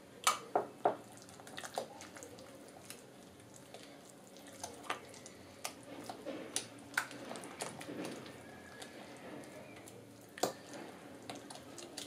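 A spatula stirring egg into mashed pumpkin in a glass bowl: soft wet squelching with scattered clicks of the spatula on the glass. A few sharp taps come in the first second.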